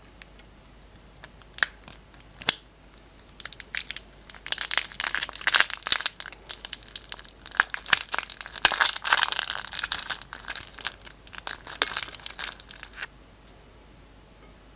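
Slime-making handling sounds: a couple of single clicks, then from about three and a half seconds in a dense crinkling, crackling run that stops suddenly near the end.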